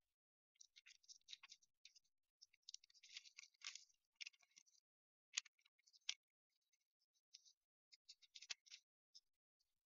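Faint rustling and clicking of Bible pages being leafed through, in short irregular scratchy bursts with a few sharper clicks.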